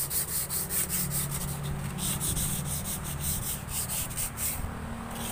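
Sandpaper rubbed quickly back and forth along a rusty steel knife blade to scour off the rust, several scraping strokes a second, stopping shortly before the end.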